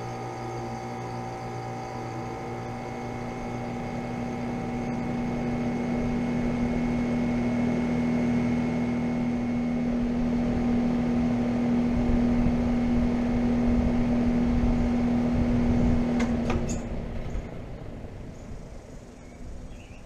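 Carrier Comfort Series central air conditioner condensing units running, a steady compressor hum with fan noise that grows louder. About 16 seconds in, a few clicks sound and the hum cuts off as the units shut down, leaving only faint background sound.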